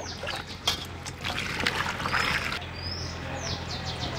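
Water splashing and dripping as peeled snake gourds are rinsed by hand in a steel bowl and lifted out, with a few short bird chirps.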